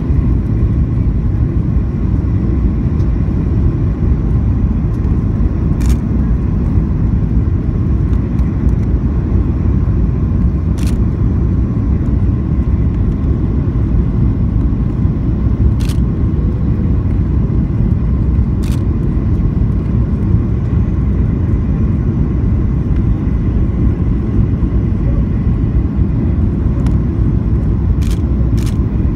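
Cabin noise of a Boeing 737-800 on approach, heard from a window seat over the wing: a steady low rumble of CFM56-7B engines and airflow with a faint steady whine. A handful of faint clicks are scattered through it.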